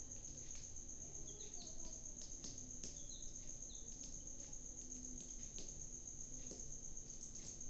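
Steady high-pitched cricket trill running without a break, with a few short high chirps and faint clicks over it.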